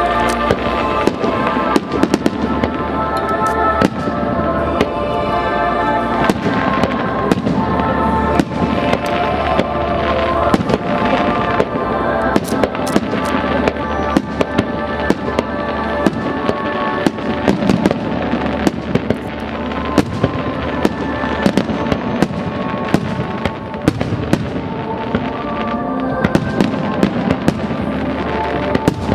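Fireworks bursting in rapid, continuous succession as sharp bangs and crackles, over music playing with the show.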